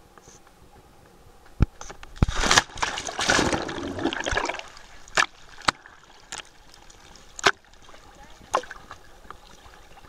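Water splashing and sloshing right against a waterproof camera held at the surface for about two seconds, then a handful of sharp, separate slaps of small waves against the camera.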